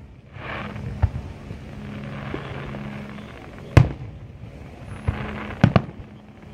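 Aerial firework shells bursting: several sharp bangs. The loudest comes a little past halfway, and two follow in quick succession near the end.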